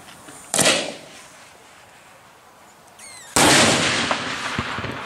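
Daytime salute firework shells exploding. There is a sharp bang about half a second in, then a much louder blast a little after three seconds that fades off in a long rolling tail.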